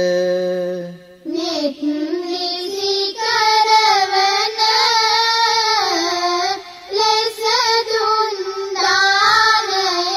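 Sinhala Buddhist devotional singing: a low male voice holds a long chanted note, breaks off about a second in, and a high, child-like voice takes over, singing long drawn-out notes with pitch turns.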